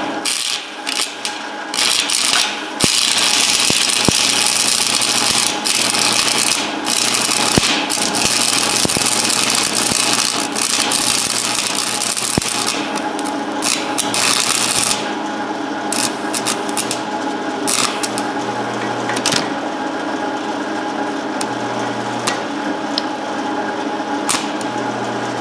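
Stick-welding arc crackling and sputtering with a 7018 rod: broken crackles at first, a steady hissing crackle for about twelve seconds, then stopping and restarting in short spells, over a steady hum. The 7018 rod will not run smoothly for him.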